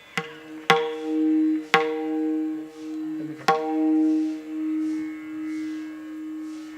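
Kirtan accompaniment: a sustained drone note that swells and fades, with four ringing strokes on a tuned hand drum, the last about three and a half seconds in.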